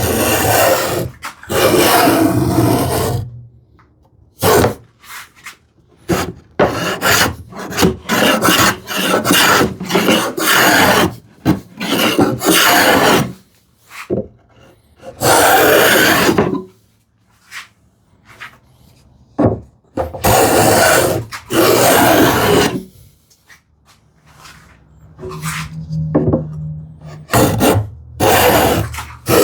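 Handmade wooden rabbet (rebate) plane cutting along the edge of an ash board: a series of planing strokes, each a second or two long, with short pauses and a few knocks between them as the plane is lifted and reset.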